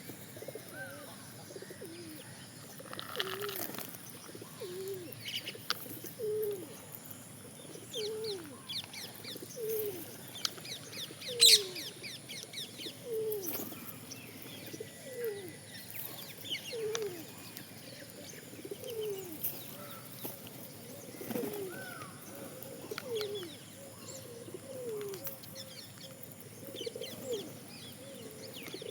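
Birds calling: a low, falling call repeats roughly once a second, with scattered high chirps over it. A single sharp knock comes about eleven seconds in.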